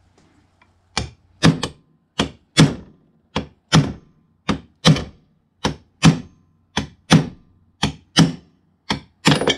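Hammer striking a steel socket that rests on the outer race of a Ford 3G alternator bearing, driving the old bearing out of the aluminium housing. About sixteen sharp taps that come in pairs, roughly one pair a second, each with a short metallic ring.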